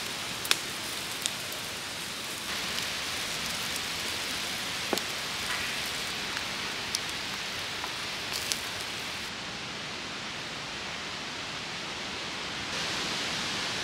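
Sausages and bacon sizzling on a grill over a wood campfire: a steady hiss with scattered sharp crackles and pops from the burning wood. Near the end a slightly louder, even hiss takes over.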